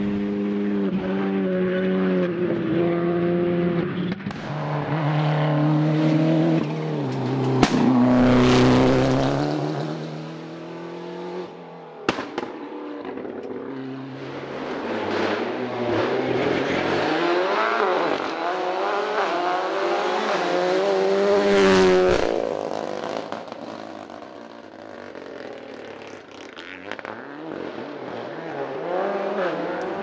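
Rally car engines at full throttle: one car pulls away through several upshifts, the engine note dropping at each gear change, with a couple of sharp cracks about eight and twelve seconds in. Then another car comes in, revs rising and falling through gear changes, loudest about 22 seconds in and fading after.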